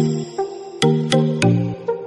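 Background music with a steady, punchy beat over low pitched notes.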